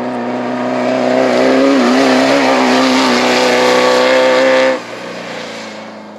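Off-road race car engine running hard at high revs as the car passes close, its pitch wavering. It drops away suddenly near the end to a quieter engine sound.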